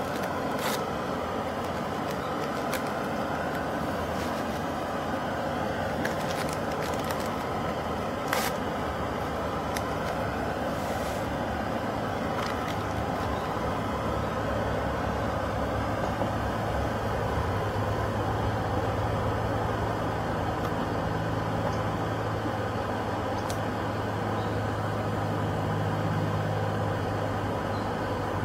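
A camp stove burning steadily under the cook pot, with a few sharp crackles and clicks. A low hum comes in about halfway through.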